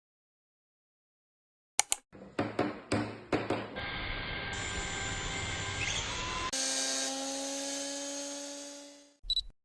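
A few sharp knocks, then a handheld electric power tool running steadily. About two-thirds of the way through its speed steps up, and it then winds down to a stop. Two short clicks follow near the end.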